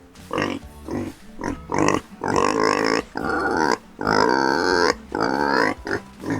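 Pigs grunting: a quick run of short grunts, then four longer, drawn-out calls from about two seconds in.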